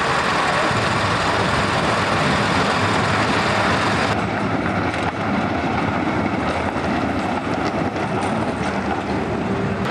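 Steady city street noise that changes abruptly about four seconds in to the sound of a tram rolling past.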